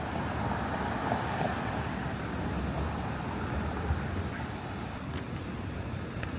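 Steady rumble of a vehicle in motion, with a thin high whine held throughout.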